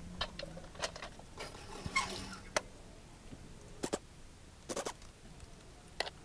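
Scattered light clicks and metal taps of a socket wrench and gloved hands working on an old carbureted Toyota engine as it is taken apart, some in quick pairs.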